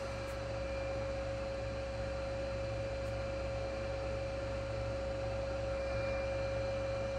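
TOS-Kuřim FNK 25A milling machine's table feed drive running the table lengthwise at feed speed, after a change of direction: a steady hum with one constant tone.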